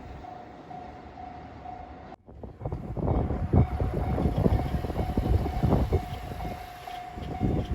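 Level-crossing warning bell ringing, an electronic tone repeating in steady pulses, over low rumbling. About two seconds in the sound breaks off abruptly. The bell then carries on over a louder rumble with irregular thuds.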